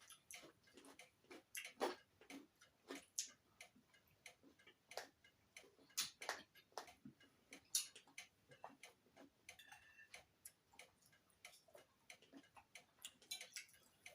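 Faint, irregular clicks and light taps of someone eating: utensils against a plate and mouth sounds, with a brief high note about ten seconds in.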